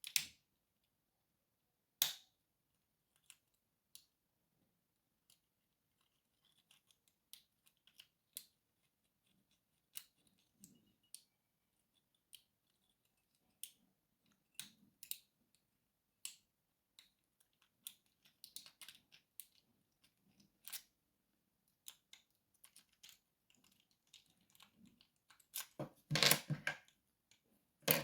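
Lock-picking tools working in a padlock: scattered small clicks and ticks of the pick and tension wrench, with a louder rattling clatter near the end.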